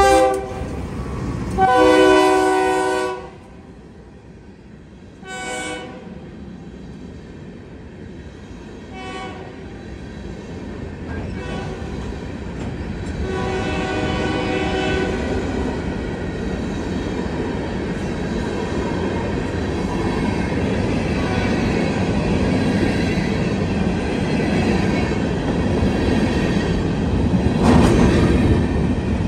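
Diesel freight locomotive horn sounding a series of long and short blasts over the first fifteen seconds. Then loaded stone hopper cars roll past with a steady rumble and wheel clatter that grows louder toward the end.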